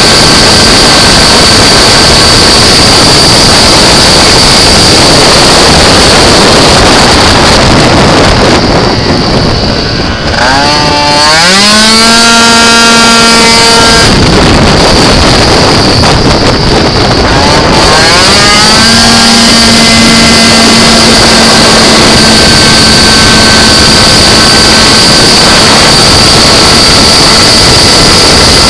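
Two-stroke engine of a Malossi 77cc-kitted Piaggio Zip racing scooter, heard on board, buzzing loud and high at full throttle. Twice, about eight and fifteen seconds in, it eases off and then the revs climb quickly and hold steady again as the twist-and-go transmission takes up the drive.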